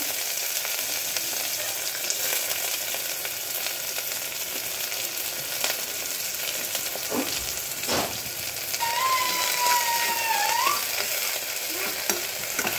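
Chopped onions and green chillies sizzling in hot oil and ghee in a steel pressure cooker, stirred with a steel spoon that now and then clicks and scrapes against the pot.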